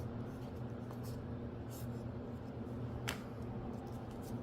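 Faint handling of Magic: The Gathering cards, soft rustles and a light click about three seconds in, over a steady low hum.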